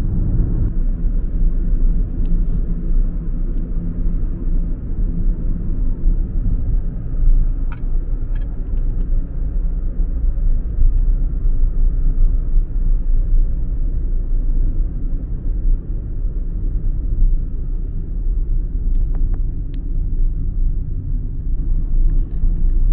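Car on the move: steady low rumble of road and engine noise, with a few faint clicks.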